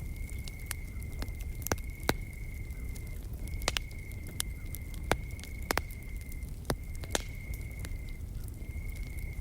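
Wood campfire crackling, with sharp irregular pops, over a continuous high-pitched insect trill that breaks off briefly a few times.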